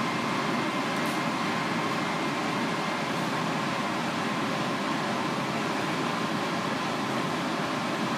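Steady hum of a ventilation fan, with a faint steady whine on top.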